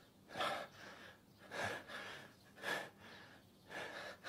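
A man breathing in heavy gasps, four ragged breaths a little over a second apart, the laboured breathing of someone in pain from a fresh bleeding wound.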